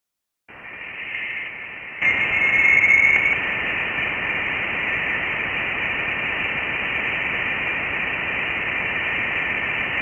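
Sonified data from the Voyager spacecraft, heard as a steady radio-like hiss. It starts about half a second in and grows louder at two seconds, with a faint whistling tone for about a second after that.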